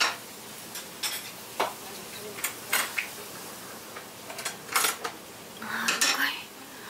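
Ceramic dishes and cups clinking and knocking on a wooden table: separate sharp clinks every second or so, with a denser clatter about six seconds in, over steady restaurant background noise.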